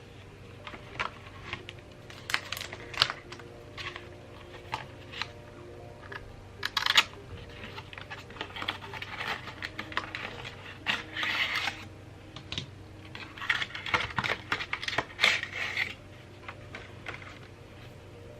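Packaging being handled by hand: a string of light taps and clicks, with stretches of crinkly rustling in the middle and again near the end.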